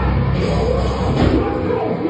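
Loud hardcore music from a band playing, with vocals over it. The deepest bass drops away near the end.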